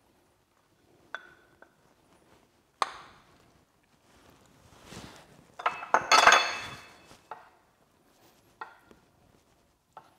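Kitchen clinks and knocks: a wooden spoon scraping shaved Parmesan out of a glass bowl into a stainless-steel frying pan, then tapping in the pan as the cheese is stirred into the pasta. A louder cluster of ringing clinks comes about six seconds in.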